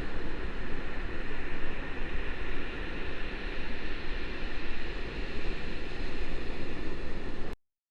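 Rushing wind and surf noise on a bodyboarder's POV camera microphone, an uneven roar heavy in the low end, cutting off suddenly near the end.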